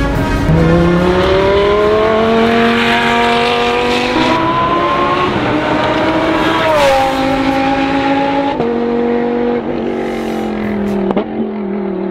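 Lamborghini Huracán race car's V10 engine at full throttle, its pitch climbing and dropping suddenly at an upshift about seven seconds in. After that the revs fall as the driver lifts off, with a few sharp pops near the end.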